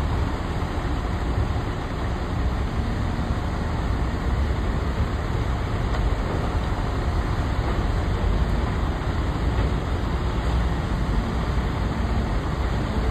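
Cat high-reach demolition excavator's diesel engine running steadily as a low, even rumble with no distinct crashes.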